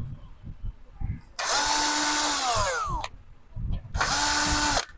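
Electric drill-driver motor running twice, a run of about a second and a half and then a shorter one of about a second, each at a steady pitch; the first winds down with a falling whine as the trigger is released.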